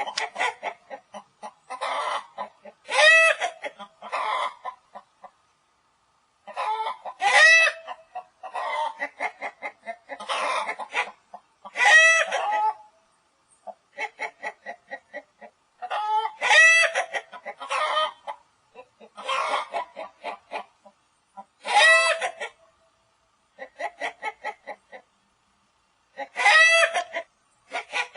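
Chicken clucking in runs of quick, short clucks. Each run ends in a louder, drawn-out squawk, about six times over.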